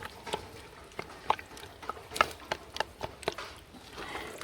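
A utensil knocking and scraping in a big cooking pan, with irregular sharp clacks a few times a second, as whole peeled plum tomatoes are mashed up in a chicken curry.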